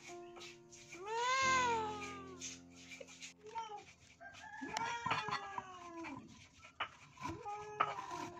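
Domestic cat meowing: one long, loud meow rising and then falling about a second in, followed by several shorter calls.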